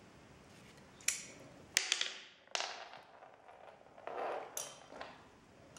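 A few sharp clicks and taps with short scraping rustles fading after them, as a mouse handles a small ball on a wooden toy basketball board and hoop.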